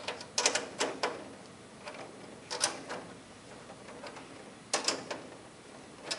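Scattered sharp metallic clicks and taps of a hand tool working the panel standoffs on a metal frame as they are checked for tightness. There are about four quick clicks in the first second, then single clicks near the middle and a close pair near the end.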